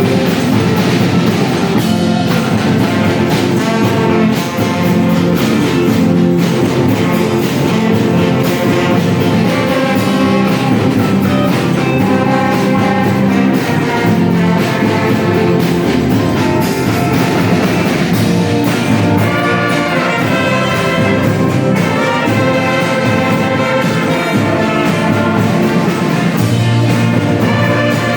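Brass band playing a tune, several horns sounding together without a break.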